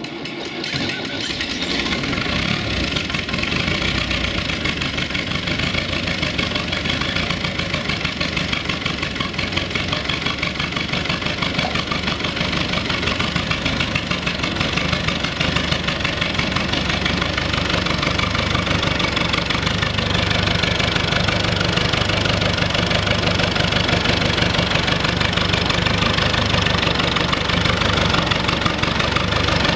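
UTB-Fiat 445 DT tractor's diesel engine running just after a cold start at −5°C, growing louder over the first couple of seconds and then settling into a steady, knocking diesel clatter.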